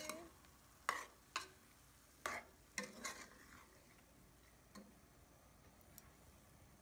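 Metal spoon stirring red peas and rice in a cooking pot, scraping and knocking against the pot in several short strokes during the first few seconds, then a couple of lighter taps.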